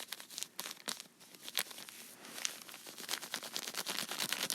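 Plastic packaging crinkling and scratching as a cotton swab scrubs Sharpie ink off it, in a rapid run of rustles that grows denser in the second half.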